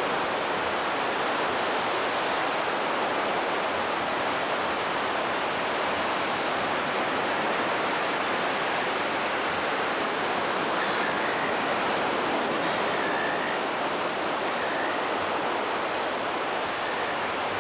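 Steady, even hiss with no rhythm and no rise or fall, the noise of a worn analogue videotape sound track.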